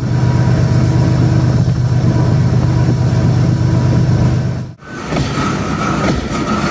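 A diesel-electric locomotive's engine running steadily with a deep hum, with wind rushing past as the freight train moves. About five seconds in this gives way to the rumble of freight wagons' steel wheels rolling past on the rails, with a steady high squeal.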